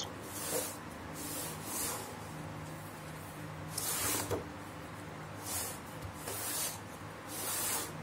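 Soft swishing scrapes, about seven short ones spread over several seconds, as a laptop is slid and turned on a wooden table and hands brush over its underside, over a faint steady low hum.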